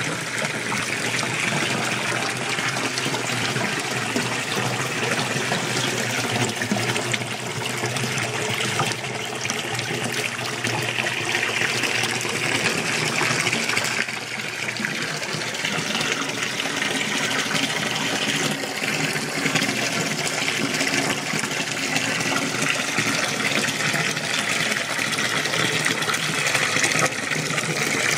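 Spring water pouring from a spout into a stone basin: a steady splashing stream. The sound changes slightly about halfway through.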